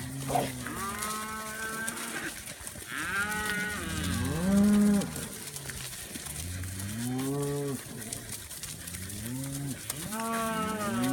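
Cattle mooing over and over: a string of long, drawn-out moos from several animals, some overlapping, the loudest about four to five seconds in.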